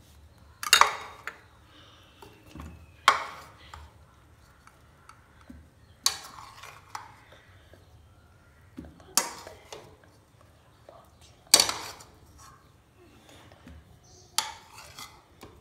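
A spoon clinking against a blender jar and plate as banana slices are scooped up and dropped into the jar: six sharp knocks, one every two to three seconds, with quiet between.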